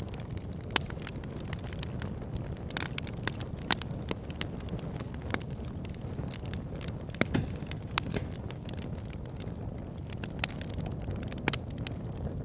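Wood fire burning in a fireplace: a steady low rumble of flames with irregular crackles and a few sharper pops from the logs.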